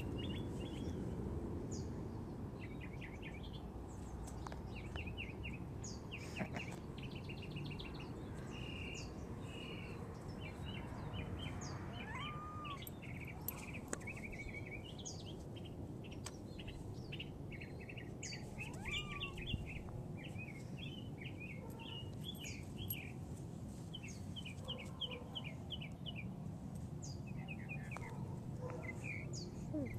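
Small songbirds chirping, with many short high calls and quick trilled runs of notes, over a steady low background rumble.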